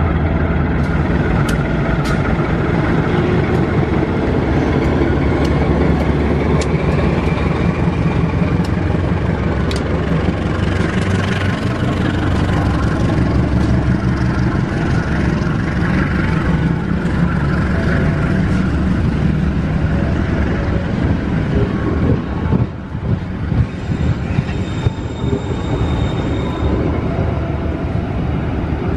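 Diesel-electric locomotive pulling a passenger train away from a station, its engine running under load as it passes. The coaches then roll by with a steady rumble, wheels clicking over the rail joints.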